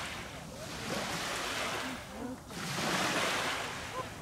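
Small waves lapping on a sandy beach, the wash swelling and fading twice.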